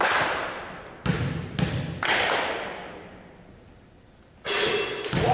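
A basketball bounced four times on a hardwood gym floor before a free throw, each bounce ringing out in the echoing gym. Near the end, a sudden loud burst of noise.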